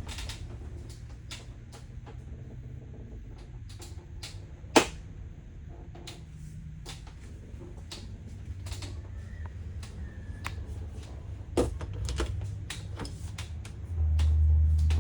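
Scattered clicks and knocks over a low hum, with two sharp bangs about five and twelve seconds in. A louder low rumble starts near the end.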